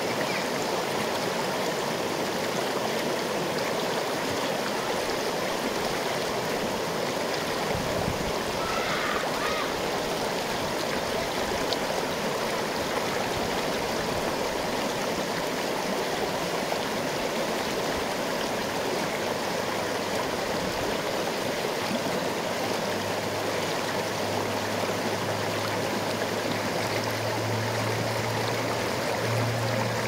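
Shallow river water rushing and splashing over a small rock cascade, a steady churning with no let-up. A faint low hum comes in during the second half.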